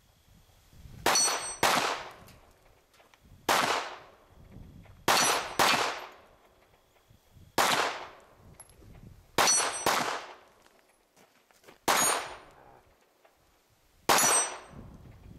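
Handgun shots fired one at a time at steel plate targets, each sharp report carrying the ringing clang of steel being hit. About ten reports, some in quick pairs half a second apart, others up to two seconds apart.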